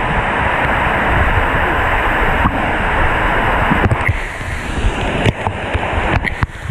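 Loud, steady rush of falling water, with a few brief knocks and clicks near the middle and end.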